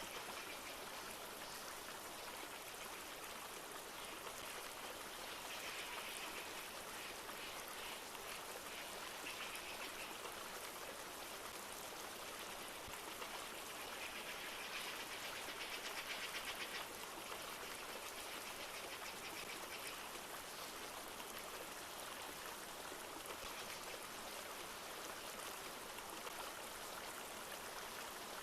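Steady rush of a flowing river. A rapid high trill rises over it several times, loudest a little past the middle.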